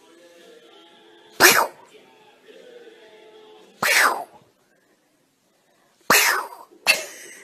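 Four sharp, explosive hiss-like bursts from a cat spitting in a scuffle with another small animal: about a second and a half in, at four seconds, at six seconds and again just before seven.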